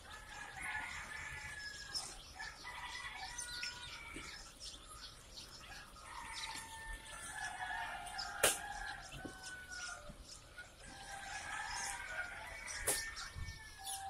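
A crowd of young chicks peeping continuously in many short, overlapping high calls. A few sharp knocks of plastic crates and baskets being handled stand out, the loudest about eight and a half seconds in and again near the end.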